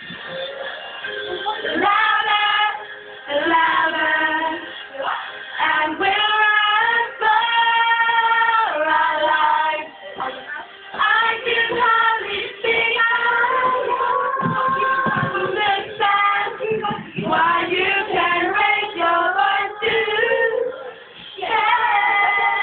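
Girls singing a song together into microphones, holding long notes, with short breaks between the lines.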